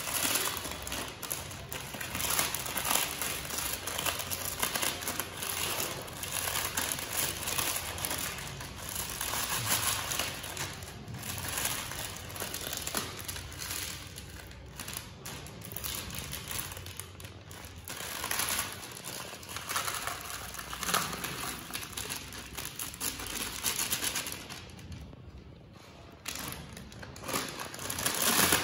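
Plastic snack packets crinkling and crunchy chips crackling as they are handled and crushed, a dense run of small crackles with a brief lull shortly before the end.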